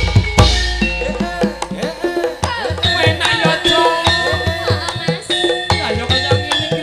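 Javanese gamelan (karawitan) playing live, with hand-drum strokes of the kendang and ringing metallophone tones, while a female sinden sings through the PA. A deep low drone sits under the music for the first two seconds or so.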